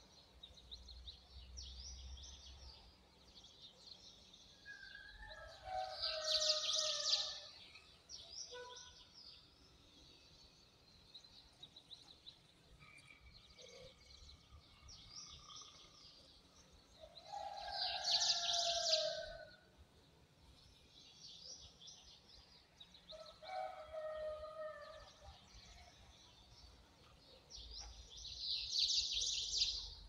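Birds chirping and twittering without a break, with a louder, fuller song phrase three times, about eleven seconds apart.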